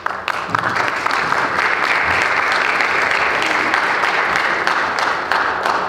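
Audience of students clapping: dense, steady applause that begins abruptly.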